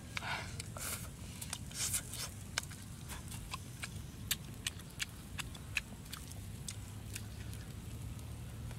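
Eating sounds from a person picking at and chewing rock-grilled fish: an irregular run of sharp clicks and smacks, with a few short, softer crunchy smears in the first two seconds.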